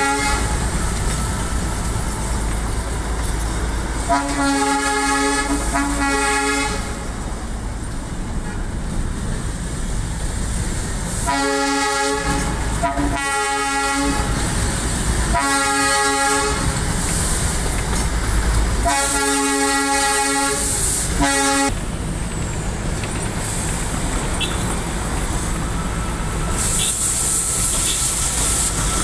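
Darjeeling Himalayan Railway toy train's horn sounding a series of toots about a second long, mostly in pairs, over the steady running noise of the train. The toots stop about three-quarters of the way through.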